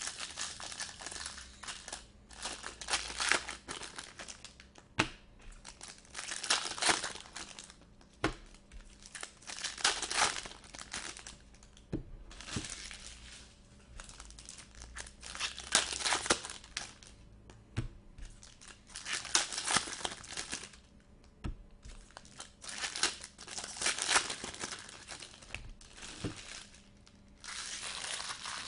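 Foil wrappers of Bowman Chrome trading-card packs being torn open and crinkled, in bursts every few seconds, with a few light taps between them.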